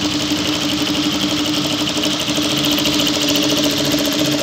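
Industrial lockstitch sewing machine running steadily, a constant hum with a fast even rattle.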